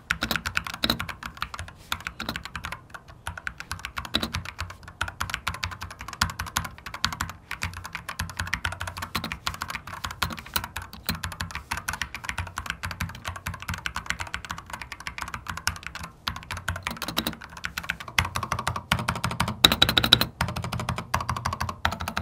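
Fast, continuous typing on a Dareu A87 Hotswap mechanical keyboard fitted with linear Blue Sky switches, with a few louder keystrokes near the end. The reviewer finds the stabilizers slightly rattly.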